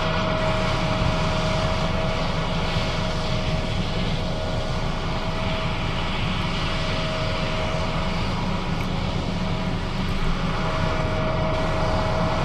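John Deere S660 combine running steadily while harvesting soybeans: a constant engine and machinery drone with a steady high whine that fades for a few seconds in the middle and then returns.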